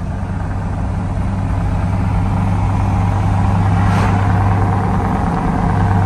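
Pickup truck driving at highway speed, heard from inside the cab: a steady low engine and road drone that grows slowly louder.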